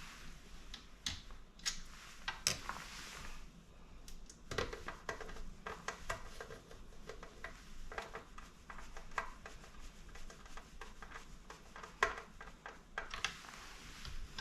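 Screwdriver driving a screw back into a KitchenAid stand mixer's metal housing: an uneven run of small clicks and metallic taps, busiest in the middle.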